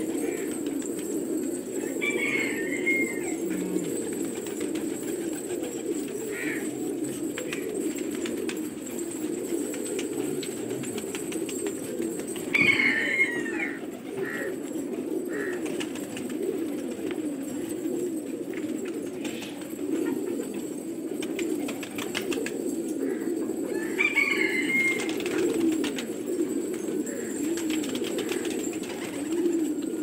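A flock of domestic fancy pigeons cooing together in a continuous low, wavering chorus, with some wing flapping. Three times a short, higher-pitched bird call cuts through it.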